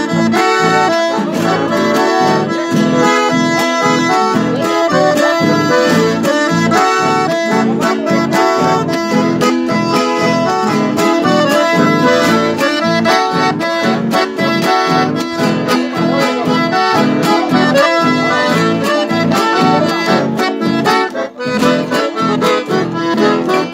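Chamamé played live on a piano accordion, with acoustic guitars strumming a steady rhythm beneath it.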